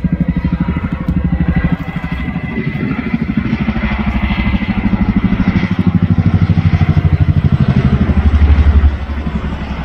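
Boeing CH-47 Chinook tandem-rotor helicopter flying past, its rotor blades beating in a rapid, steady pulse with a faint high whine above it. It grows loudest about eight seconds in, then drops suddenly.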